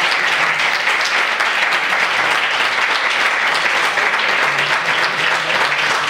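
An audience applauding steadily: many hands clapping at once, at an even level throughout.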